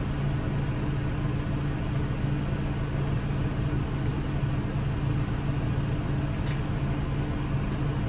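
Tractor engine running at a steady drone, heard from inside the closed cab. A single light click about six and a half seconds in.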